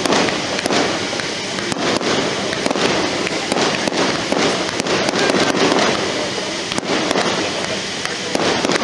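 Fireworks display going off continuously: a rapid, irregular stream of cracks and bangs from many shells over a steady crackle.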